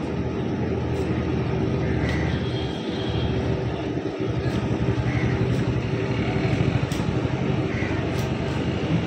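A steady low machine hum runs throughout, with sharp clicks about once a second from fish pieces being cut against an upright curved blade.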